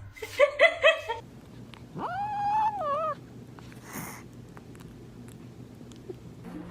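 A pet animal calling: about five short high yelps in quick succession, then one long call that wavers and drops near its end. A brief burst of noise follows.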